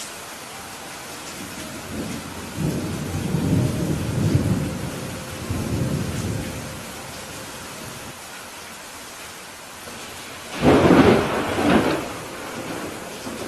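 Steady rain hiss with thunder: a low rolling rumble starts about two seconds in and dies away, then a louder, sharper thunderclap comes about three quarters of the way through and rumbles off.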